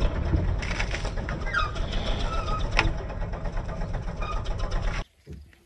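Farm tractor's diesel engine running with a steady, rapid chugging, with a few short bird chirps over it. The sound cuts off suddenly about five seconds in.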